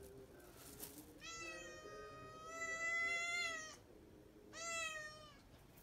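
Cat meowing: one long, drawn-out call of about two and a half seconds, then a shorter call near the end.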